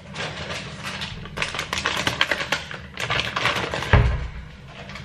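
Dry cat food rattling as it is poured or shaken out for cats: a dense clatter of small clicks over a couple of seconds. A dull thump just before four seconds in is the loudest sound.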